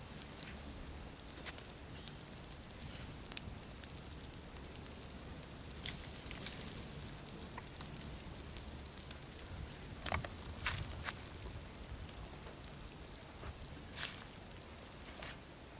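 A small open fire of dry twigs crackling as whole fish grill directly on it, with irregular sharp pops and crackles over a steady faint hiss.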